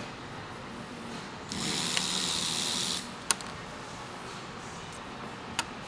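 Small sharp clicks as a terminal is worked out of the power steering rack's wiring connector. A breathy hiss runs for about a second and a half near the start.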